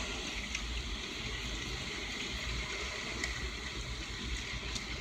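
Jet airliner cabin noise while the plane rolls along the runway, heard from a window seat over the wing: a steady rushing of engines and airflow over a low rumble, with a few faint clicks.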